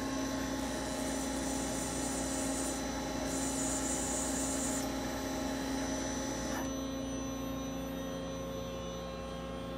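Daewoo Puma TT2000SY CNC lathe running with a steady, quiet electrical hum. A faint hiss drops away about two-thirds of the way through.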